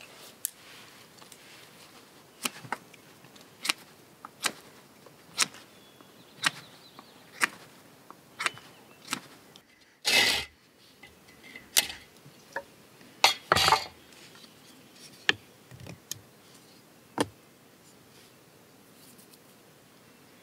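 Knife whittling a wooden stick: short, sharp strokes about once a second. About halfway through, a few longer, louder strokes of a folding saw on the wood, then a few more knocks of wood.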